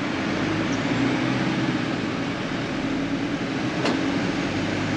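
Mercedes-Benz Sprinter motorhome driving: steady engine and road noise with a constant low hum.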